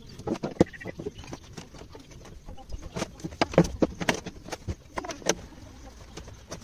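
The plastic engine cover of a Stihl FS 260 brushcutter knocking and clicking against the engine as it is fitted back on by hand: an irregular string of sharp clicks and knocks.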